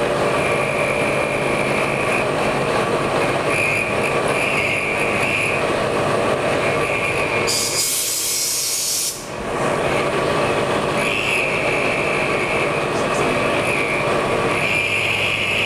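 A CNC milling machine's spindle runs while a quarter-inch end mill cuts a white plastic block, a steady machine noise with a high cutting whine that comes and goes. About halfway through, a hand-held air nozzle gives a hissing blast for about a second and a half.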